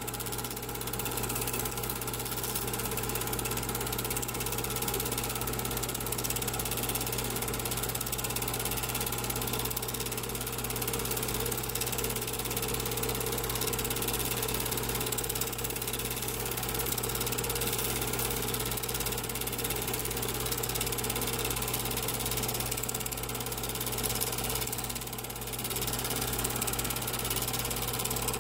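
Film projector running steadily: a constant mechanical whir with a fast, even clatter of the film advancing, over a low steady hum.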